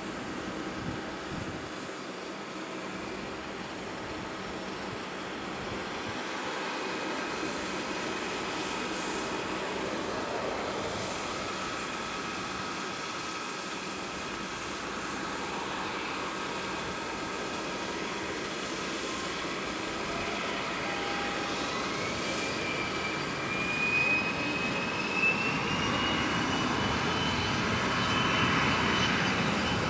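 Distant jet airliner's engines running on the runway, with a whine that climbs in pitch from about two-thirds of the way through as the engines spool up for takeoff, growing louder near the end.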